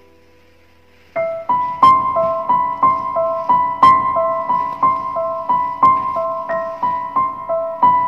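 Background music on piano: a held note dies away, then about a second in a brisk pattern of repeated notes starts, about three notes a second, rocking between two pitches.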